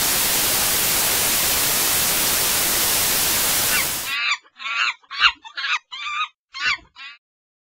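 Loud, steady hiss of white-noise static that cuts off suddenly about four seconds in, followed by a quick run of about seven short, high, wavering animal calls.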